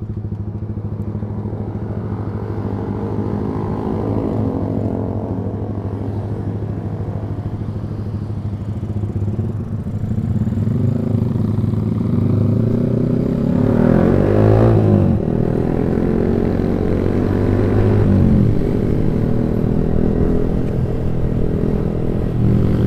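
Yamaha R15 V3 motorcycle's single-cylinder engine running through a loud aftermarket Proliner exhaust. It runs steadily, grows louder from about halfway through, and the revs rise and fall a couple of times in the second half.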